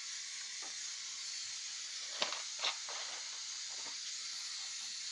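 Steady hiss of a gas stove burner heating an empty kadai, with a few light clicks and taps of metal.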